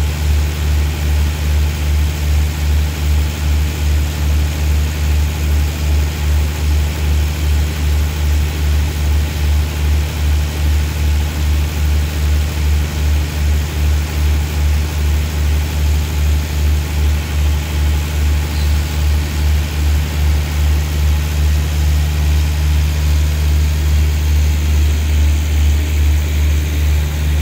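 Deep, steady diesel drone of a Thai express passenger train standing at the platform, with a regular pulsing throb. It grows a little louder near the end as the train starts to move.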